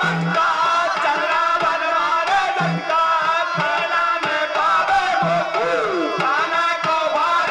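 Instrumental passage of Indian folk devotional music: a hand drum keeps a steady beat under a gliding melodic line.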